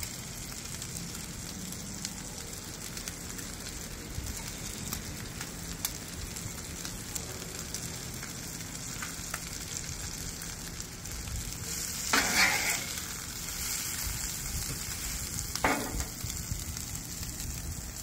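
Omelet and fillings sizzling steadily on a hot Traeger Flatrock flat-top griddle, with a spatula scraping across the griddle twice, about twelve and sixteen seconds in.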